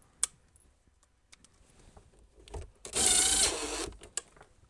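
Yellow cordless drill running in one short burst of about a second, about three seconds in: a steady motor whine. A single sharp click comes just before.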